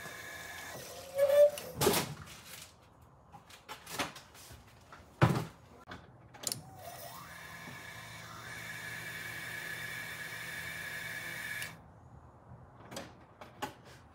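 Electric fuel pump of a Nissan SR20 car running with a steady whine and low hum for about five seconds, pressurising the fuel line through the new fuel filter for a leak and pressure test, then cutting off suddenly. A few sharp knocks and clicks come before it.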